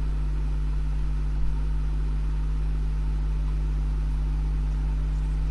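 Steady low electrical hum, a mains-frequency drone with a buzz of overtones above it.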